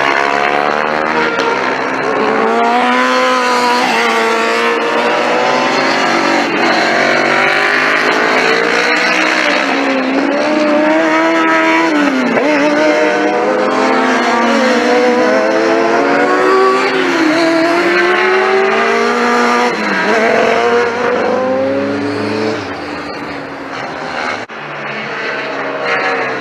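Racing motorcycles at full throttle on a circuit, several in succession. Their engine notes keep rising and falling as they rev, shift gear and pass. The sound drops away for a few seconds near the end before the next bike comes in.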